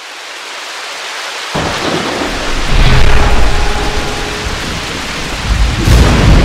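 Thunderstorm sound effect: a rain hiss swells, then deep thunder rumbles in about a second and a half in, with a second surge of rumbling near the end.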